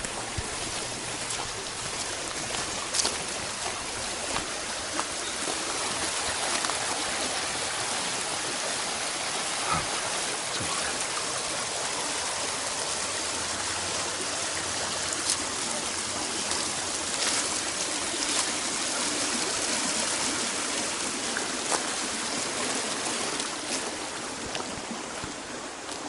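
Steady rush of a stream's running water, with a few sharp clicks.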